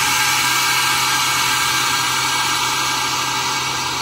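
Harvest Right freeze dryer's drain valve opened, air hissing in through the drain hose as the vacuum chamber is let back up to air pressure at the end of a drying cycle. The hiss is loud and steady, with a low steady hum under it, and starts to fade near the end.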